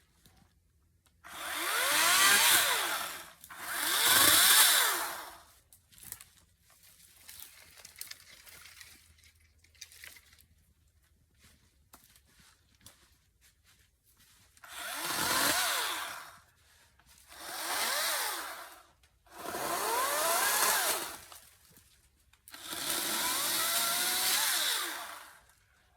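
Ryobi 40V battery chainsaw running in six short bursts, each spinning up and winding down as the trigger is pulled and released: two in the first few seconds, then a quiet stretch, then four more in the second half.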